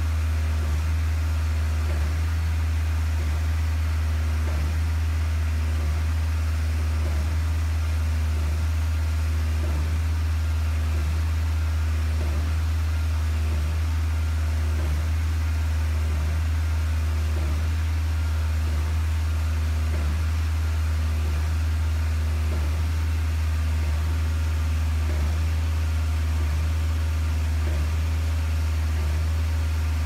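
Concrete pump running steadily, a loud low drone with a faint regular pulse, as concrete is pumped through the hose into a foundation footing.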